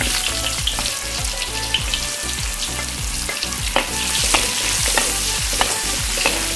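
Sliced shallots sizzling in hot oil in a wok, with a steady frying hiss. A wooden spatula scrapes and knocks against the pan in many short ticks as they are stirred.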